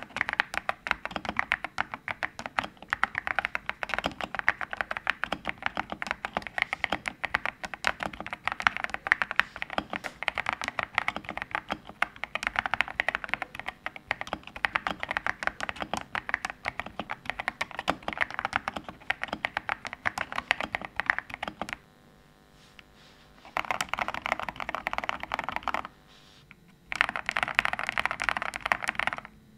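Typing on a CIDOO Nebula 65% mechanical keyboard with factory-lubed linear Cidoo switches, an FR4 plate and PBT keycaps: a fast, steady run of key clicks that stops about 22 seconds in, then two short bursts of typing.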